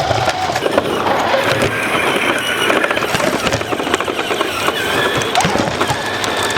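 Traxxas Stampede 4x4 VXL electric RC truck running, a wavering motor whine over a dense crackling noise.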